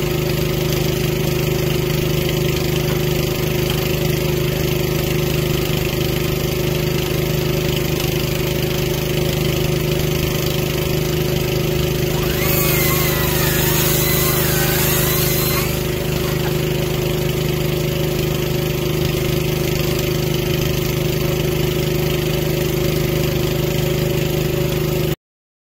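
Small engine of a boom lift idling steadily. For about three seconds midway a higher, wavering whine with a hiss over it joins in, and the sound cuts off suddenly near the end.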